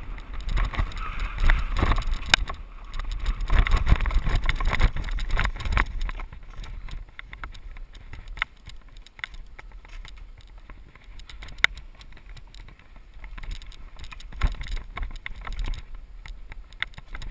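Mountain bike rolling down a dirt trail, close to the camera: tyre noise, low rumble and the bike rattling over rough ground for about the first six seconds. Then it runs quieter over smoother dirt, with occasional sharp clicks and a brief bumpier patch near the end.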